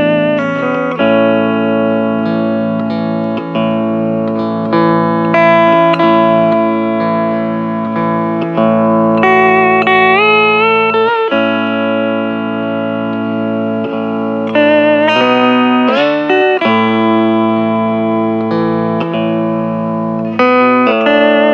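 Hawaiian steel guitar playing a slow instrumental melody, sliding up between notes with vibrato on held notes, over steady sustained accompaniment.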